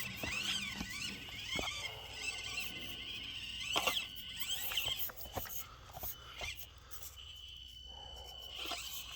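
Axial SCX24 micro crawler's stock electric motor and gearbox whining at a high pitch that rises and falls with the throttle, with scattered clicks of tyres and chassis on rock.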